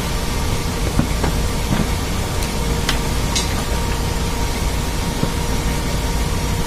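Steady drone of a ship's engine-room machinery running, with a steady hum of two tones under it. A few light clicks in the first half as a bearing puller is turned on the motor shaft.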